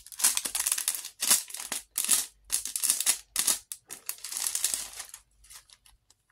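Clear plastic bag crinkling in a series of irregular crackles as it is handled, with some paper rustle; the crackling thins out about five seconds in.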